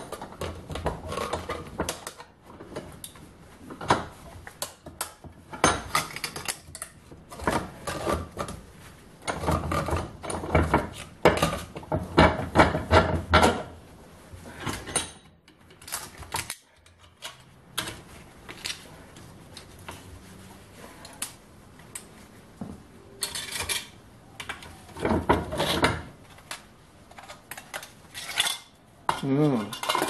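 Thin tin-can mould being torn and peeled off a cast aluminium slug clamped in a steel bench vise: irregular metallic clinks, rattles and scraping of sheet tin and pliers, busiest in two spells with a quieter stretch between them.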